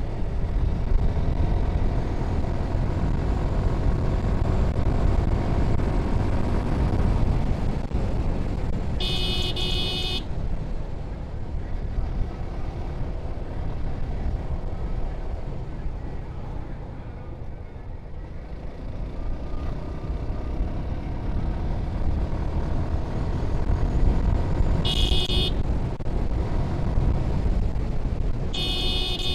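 Suzuki Gixxer SF single-cylinder motorcycle on its stock exhaust, running along the road. It eases off briefly around the middle and then picks up again. A vehicle horn toots three times: about nine seconds in, a short one near twenty-five seconds, and again near the end.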